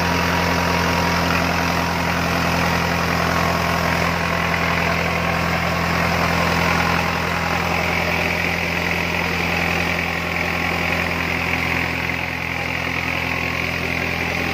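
Diesel engine of a trailer-mounted air compressor running steadily at an even pitch, working to blow air down a borewell to clear the pipe.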